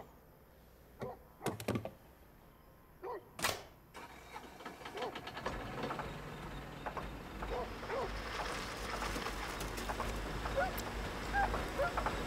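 A few knocks and clunks of work at a bench machine in the first few seconds, one of them sharp and bright. Then a low rumble builds steadily louder, with short high chirps over it.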